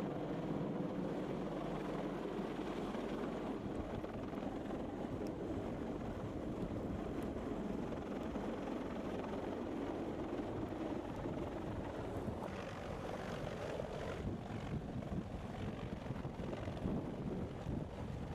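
CH-53 heavy-lift helicopter hovering low overhead, its rotor and turbine noise steady, with rotor downwash buffeting the microphone.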